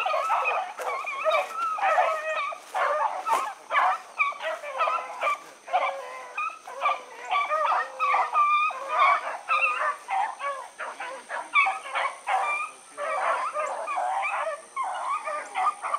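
A pack of rabbit-hunting hounds giving tongue, many dogs baying and yelping at once in a continuous overlapping chorus, the cry of a pack running a rabbit's trail.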